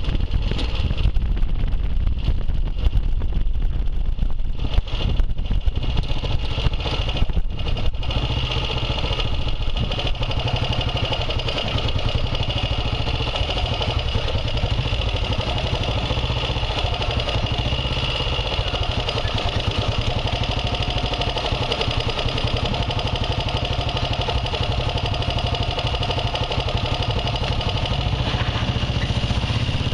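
Vintage motorcycle engine running, with wind buffeting the microphone while riding for the first several seconds, then idling steadily while stopped in traffic.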